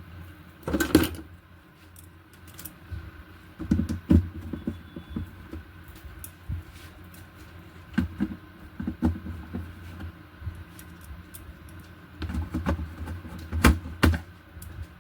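Irregular clicks, taps and knocks of hands handling the parts and wiring of an opened LED TV, with louder knocks about a second in, around the middle and twice near the end.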